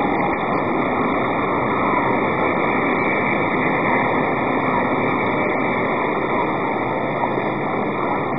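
Steady, even background noise with no distinct events, much like the hum of distant traffic.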